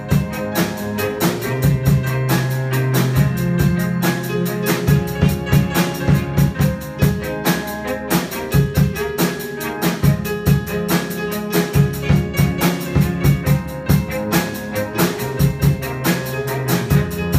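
Live rock band playing, the drum kit keeping a steady, driving beat under keyboard, electric guitar and violin.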